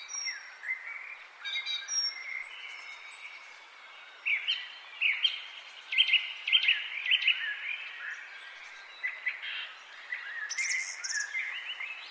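Several forest songbirds singing at once, with overlapping short whistles, trills and quick up-and-down phrases over a faint steady hiss. The song is busiest and loudest in the middle, and a higher, sharper phrase comes near the end.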